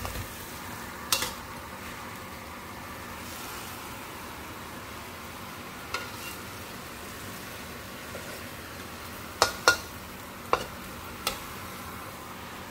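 Capcay (shrimp and mixed vegetables) stir-frying in a pan: a steady sizzle, with a cooking utensil knocking against the pan a few times, mostly in a cluster of four knocks near the end.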